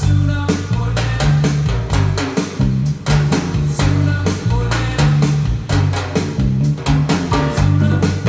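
Band music with a drum kit, a strong bass line and guitar, played back through Paradigm Studio 100 v1 loudspeakers, with a steady beat.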